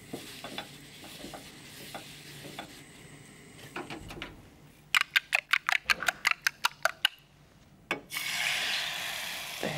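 A utensil beating eggs in a white ceramic bowl, quick clinking strokes about six a second, then from about eight seconds in a steady sizzle as the beaten eggs hit the hot oiled non-stick frying pan.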